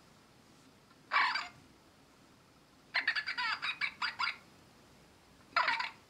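A yellow plush ladybird toy's squeeze-activated voice box playing silly noises in three bursts: a short squawk about a second in, a longer rapid chattering run around three to four seconds, and another short squawk near the end.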